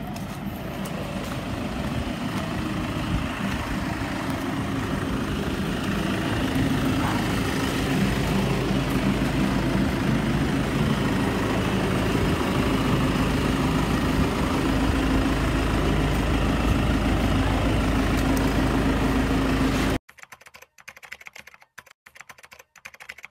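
A steady motor-like rumble with a low hum, slowly getting a little louder, that cuts off suddenly near the end. Then a few sparse typing clicks, a keyboard sound effect.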